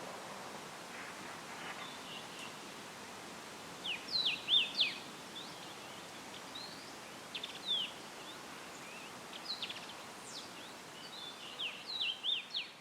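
A songbird singing short phrases of quick falling whistled notes, four times, over a steady hiss of tree leaves rustling in a light breeze.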